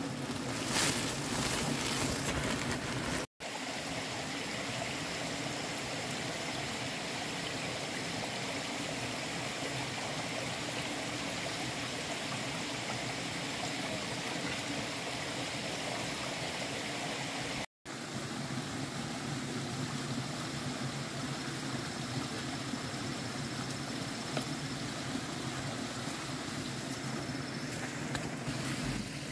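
Shallow rocky stream flowing steadily, with crinkly rustling of a woven plastic sack being handled in the first few seconds. The sound drops out for an instant twice.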